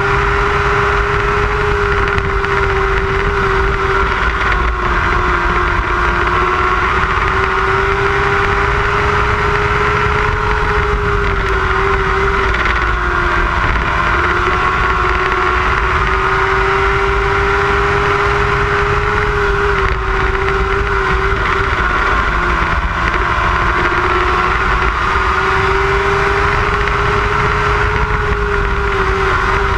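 Lightning sprint race car engine running at high revs under load. Its pitch sags and climbs back every few seconds as the throttle is eased and reapplied, lap after lap.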